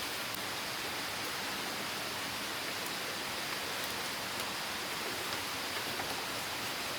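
Waterfall rushing steadily, an even hiss of falling water with a few faint ticks.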